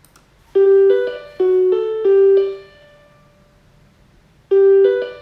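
A short piano-like melody of about six notes, each struck and fading, with the same phrase starting again near the end.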